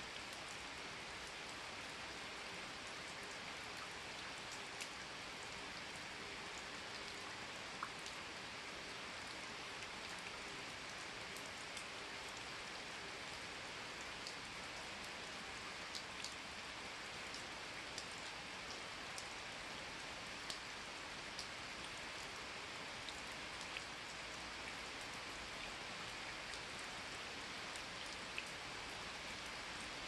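Steady rain falling on a leafy forest, an even hiss with scattered louder drips ticking sharply every second or few.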